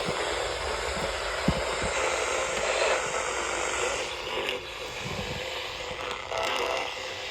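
Steady hiss of radio static from a weather radio receiver with no voice on the channel. A soft low thump comes about a second and a half in and another about five seconds in.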